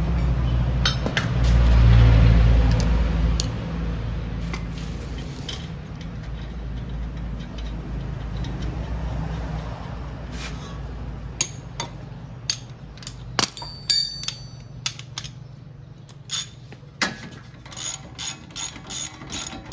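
A low rumble that swells and fades in the first few seconds, then a run of sharp, irregular clicks and metal taps from hand tools working on a car's front wheel hub assembly.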